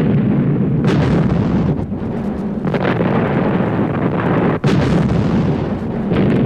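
Battle sound effects played from a vintage 7-inch vinyl record: a continuous din of explosions and artillery fire. Sharper blasts stand out about a second in, near three seconds and near five seconds, and the sound cuts out for an instant just before the last.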